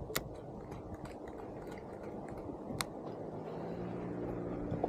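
Open-air wind and sea noise on a small fishing boat, broken by two sharp clicks a little over two and a half seconds apart. A low steady hum joins in near the end.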